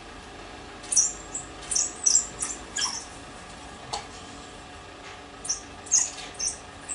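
African wild dogs twittering: clusters of short, very high-pitched squeaky chirps, one group about a second in and another about two-thirds of the way through.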